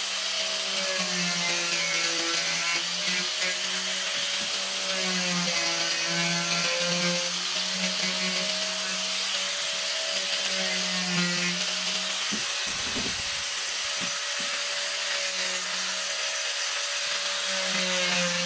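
Handheld angle grinder running with an abrasive disc, carving a small wooden block. Its steady motor whine sags and recovers in pitch as the disc bites into the wood, over a rasping grinding hiss. A brief dull bump comes about two-thirds of the way through.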